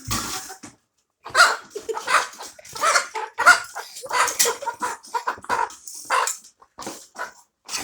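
Hen giving a rapid series of short calls, several a second, starting about a second in.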